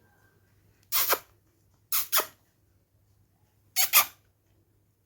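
Pet parrot giving short, shrill squawks: one about a second in, then two quick pairs around two and four seconds in.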